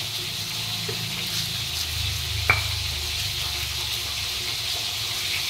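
Steady sizzle of turmeric-seasoned fish frying in hot oil in a wok, with the grinding scrape of a stone pestle crushing chillies and shallots in a stone mortar. One sharp knock of the pestle comes about two and a half seconds in.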